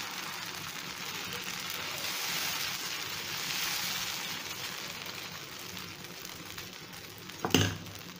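Dosa batter sizzling on a hot tawa as it is spread in circles with the back of a ladle, a steady hiss that eases off a little. A sharp knock near the end.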